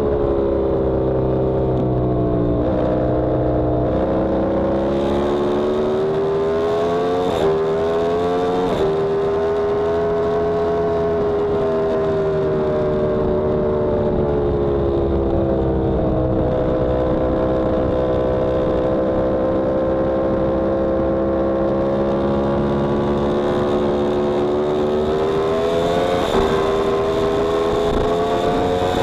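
Yamaha R1M's crossplane inline-four engine heard onboard at track pace. The pitch falls over the first few seconds, jumps up sharply twice around 7 and 9 seconds in as gears change, then swells and sags slowly through the corners and climbs again near the end.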